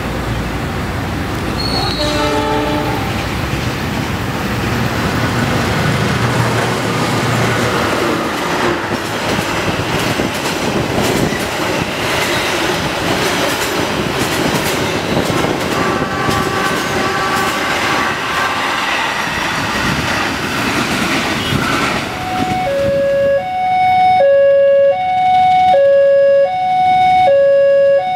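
A passenger train running past on the next track, its wheels clattering over the rails, with a short horn blast about two seconds in. About 22 seconds in, a level-crossing warning alarm starts, two tones alternating about once a second.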